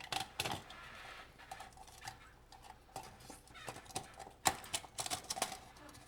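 Metal recessed light housing being worked up into a hole in the ceiling: scattered small clicks, knocks and scrapes of handling, the sharpest knock about four and a half seconds in.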